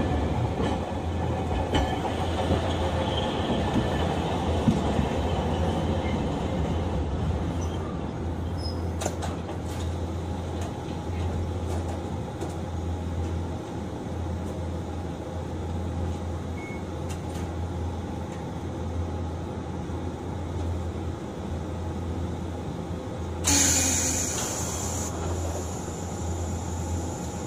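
Hiroshima Electric Railway 1900-series tram under way, heard from inside the car: a steady low hum over even rolling noise from wheels on rail. A short hiss of about a second and a half comes near the end.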